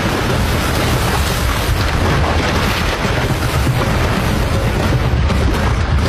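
Loud, continuous rushing, booming noise of water churning and splashing at a riverbank during a jaguar's attack on a caiman.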